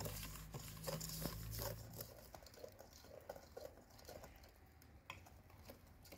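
Hand coil whisk beating egg and sugar in a stainless steel bowl: quick, gritty scraping and ticking of wire and sugar grains against the metal. The whisking is louder for the first two seconds, then goes on more softly.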